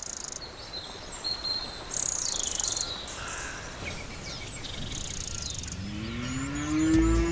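Birds chirping and trilling over an insect-like buzz and steady background hiss. Near the end a tone sweeps upward and deep bass comes in as dub reggae music starts.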